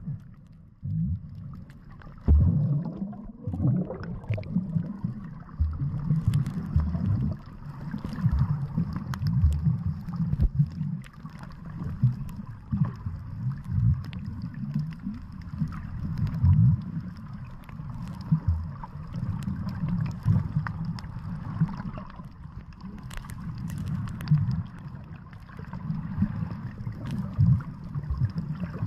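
Water gurgling and rumbling in uneven low surges, with a faint steady high whine behind it.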